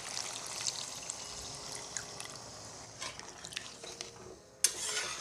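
Water being poured into a pan of chicken curry masala, a steady pouring rush for about three seconds. Then a few knocks, the sharpest about four and a half seconds in.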